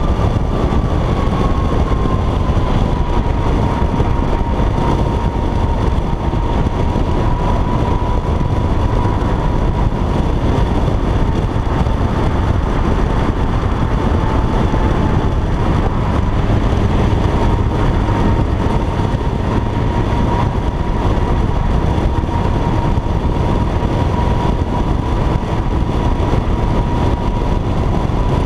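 Steady, loud wind and road noise from a car travelling at highway speed, heard through an open window, with a thin whine that dips slightly in pitch in the first few seconds and then holds steady.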